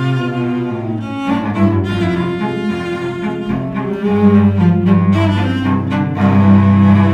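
Two cellos playing a duet with the bow, two lines sounding together. A low note comes in about four seconds in and is held under the other part.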